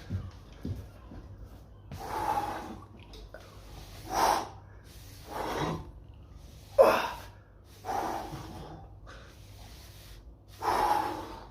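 A man's forceful breaths out, six short hard exhalations a second or two apart, the loudest about seven seconds in, as he works through exercise reps.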